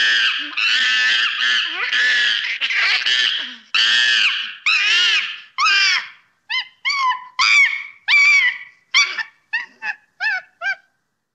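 Young monkey screaming in distress while caught in a snake's coils. Shrill calls run almost back to back at first, then break into shorter separate shrieks that stop shortly before the end.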